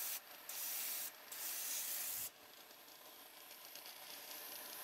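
Airbrush spraying paint in short bursts of hissing air, three in about the first two seconds, each under a second long. After that only a fainter steady hiss remains.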